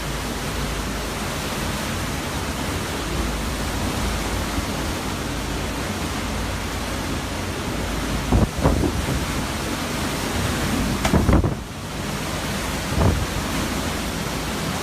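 Hurricane-force wind and rain making a steady, loud rushing noise, with a few sharper gusts or knocks about two-thirds of the way in.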